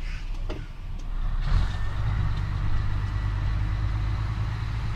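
Truck's diesel engine running while driving, heard from inside the cab; the engine note steps up and grows louder about one and a half seconds in.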